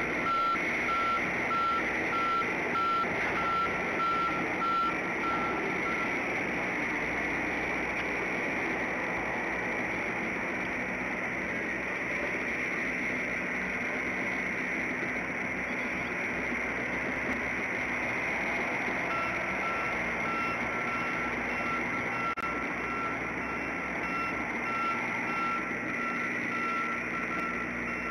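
A vehicle's backup alarm sounds a string of evenly spaced beeps at one pitch. It stops about six seconds in and starts again a little before the last ten seconds, over a steady background hiss.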